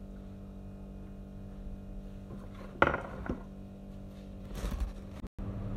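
A sharp knock of a hard object about three seconds in, then a short clatter a little later, over a steady hum. The sound drops out for an instant near the end.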